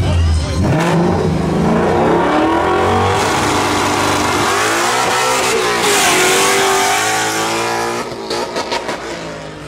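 A Ford Mustang's engine revving hard under acceleration. Its pitch climbs, falls away around five to six seconds in, then climbs again before the sound drops off near the end.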